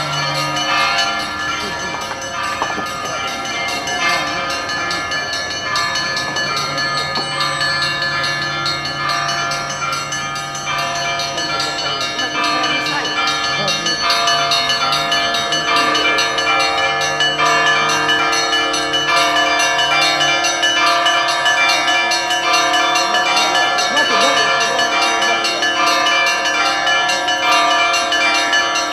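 Orthodox church bells ringing together in a continuous peal, many bells struck in quick succession over steady low bell tones, growing a little louder about halfway through.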